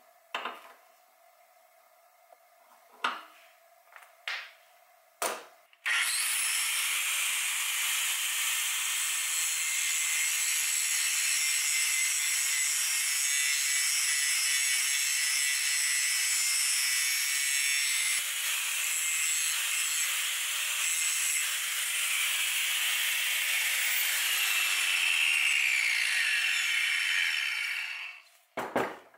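Angle grinder with a cutoff wheel cutting through a round metal bar clamped in a vise. A few knocks of handling come first, then about six seconds in the grinder starts and cuts steadily for some 22 seconds. Its pitch drops over the last few seconds before it stops, followed by a clunk.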